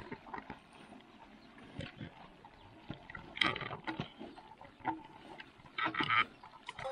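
Irregular knocks and scrapes of a utensil stirring pork in a large cooking pan, with two louder scraping bursts about three and a half and six seconds in.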